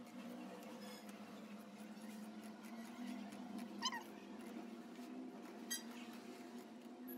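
Large tailor's shears cutting through cotton fabric, the blades closing again and again along the cut. About four seconds in there is one short, high squeak, and near six seconds a short, thin sound, over a steady low hum.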